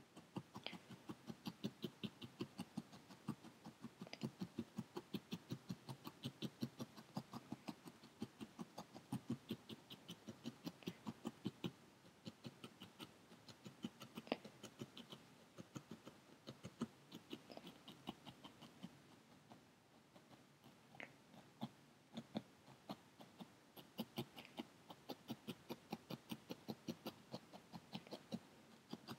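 A felting needle stabbing over and over through orange wool roving into a foam pad, tacking the roving onto the wool core: soft, faint pokes about three a second, thinning out for a few seconds past the middle.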